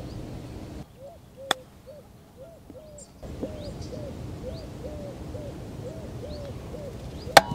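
A bird calls over and over in short hooting notes, about two a second. There is a faint click about a second and a half in and a loud, sharp click near the end.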